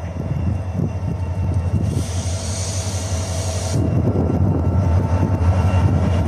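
Train at a station running with a steady low drone that grows slowly louder. A burst of hiss about two seconds in lasts around two seconds and then cuts off.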